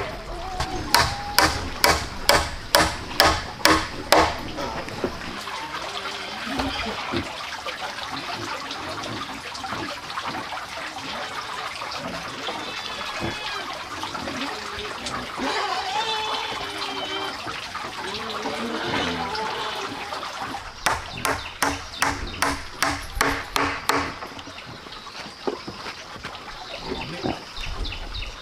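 Steel hammer driving nails into round wooden poles: a quick run of blows, about two or three a second, for the first four seconds, and another run from about 21 to 24 seconds in. Between the runs a steady rushing hiss with a few short chirping calls.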